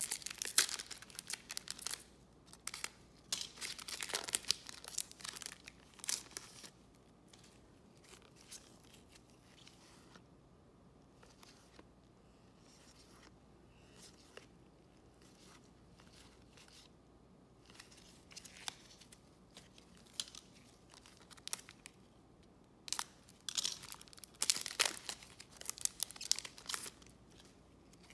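A trading-card pack wrapper crinkling and tearing as it is slit open with a box cutter and pulled apart. The crackling comes in two bouts: one through the first six or seven seconds and another near the end, with a quiet stretch between.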